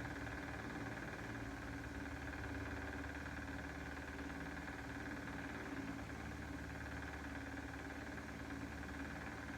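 Steady mechanical hum of a running motor, with a constant mid-pitched tone and a higher whine over a low rumble.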